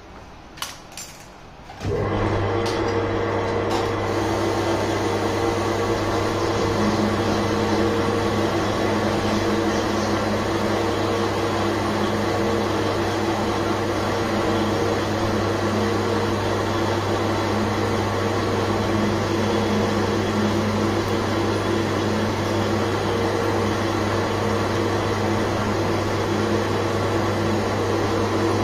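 Manual metal lathe switched on about two seconds in, after a couple of clicks, then running steadily with a low motor hum and several steady whining tones as the chuck turns.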